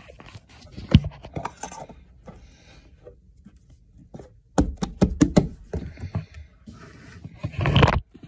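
Thinking putty being squished and pulled in the hands: irregular small clicks and squelchy pops, with a busy run about halfway through and a louder, denser rustle near the end.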